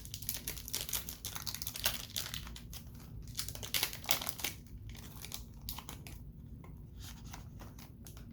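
Wrapper of a Donruss Optic trading-card pack being torn open and crinkled. Dense sharp crackling for about five seconds, then thinning to a few quieter rustles.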